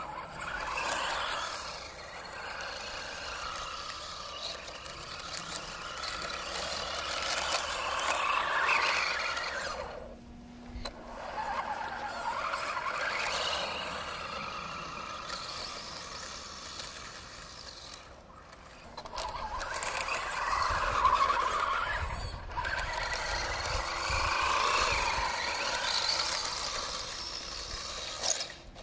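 Electric motor and belt-driven four-wheel-drive drivetrain of a 3D-printed 1/10 scale RC race buggy whining as it runs, rising and falling with the throttle and dropping away briefly twice, about ten and eighteen seconds in. The drivetrain makes a slipping noise that the driver can't place; its rear belt is prone to slipping off.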